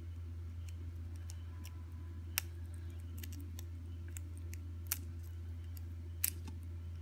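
Metal tweezers picking shell away from a hatching duck egg: a few faint, sharp clicks of tweezer tips on eggshell, spaced a couple of seconds apart, over a steady low hum.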